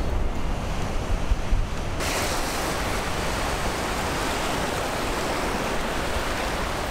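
Wind buffeting the microphone over distant surf, then, about two seconds in, the steady loud hiss of breaking surf washing up the beach.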